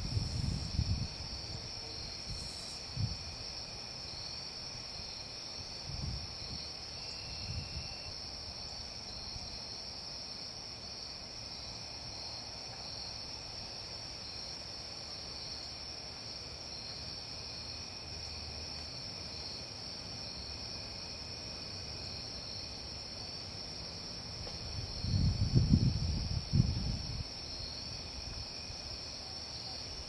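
Dusk chorus of crickets and other insects, a steady high-pitched chirring at a couple of pitches. A few short low rumbles come through, the loudest lasting about two seconds near the end.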